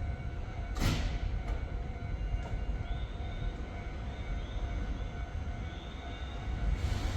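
Keio Line electric train running by with a steady low rumble. There is a sharp clack just under a second in and short rising whines from about three seconds on.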